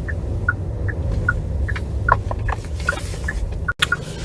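Car turn-signal indicator ticking evenly, about two and a half ticks a second, over the steady low rumble of the taxi's engine and road noise inside the cabin.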